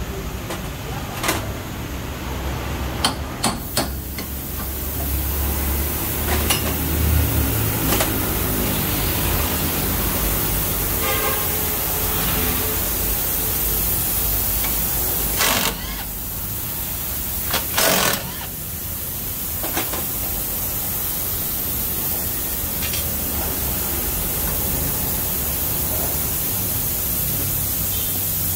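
Scattered metal clanks and knocks of hand tools and brake parts as a front brake caliper and disc are taken off a car's wheel hub, over a steady hum; the two loudest clanks come a little past halfway, about two seconds apart.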